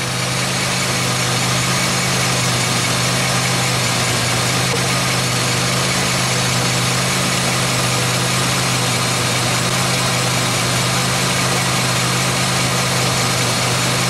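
A 2003 Pontiac Grand Am GT's 3.4-litre V6 and front drivetrain run with a steady, unchanging hum. A mechanic's stethoscope held against the front wheel hub faintly carries the grind of the worn front hub bearing.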